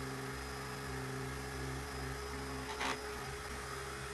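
Supor handheld dust-mite vacuum running with a steady motor hum, and one short knock about three seconds in.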